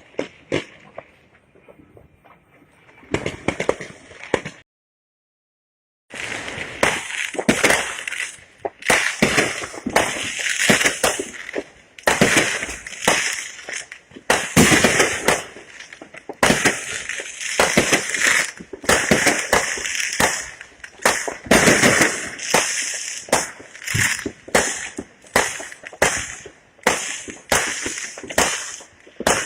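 Fireworks going off in rapid succession, one or two sharp bangs a second with crackling. A few scattered bangs start it, then the sound cuts out completely for about a second and a half before the barrage begins.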